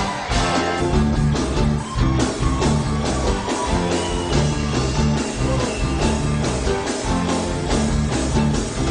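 Live band playing an upbeat instrumental intro with electric guitar over a steady beat, no vocals yet.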